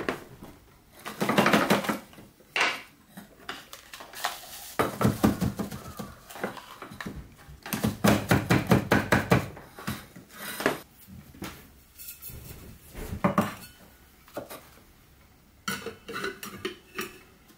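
Clicks, taps and knocks of pour-over coffee gear being handled: a clear plastic dripper and paper filter set out, ground coffee tapped out of an electric coffee grinder into the filter, and the dripper set onto a cup. The sound comes in several bursts, the loudest a rapid run of taps about halfway through.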